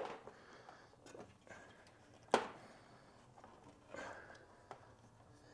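Quiet handling sounds as a large intake tube is worked into the plastic front-bumper ducting: light scrapes and knocks, with one sharp knock about two and a half seconds in.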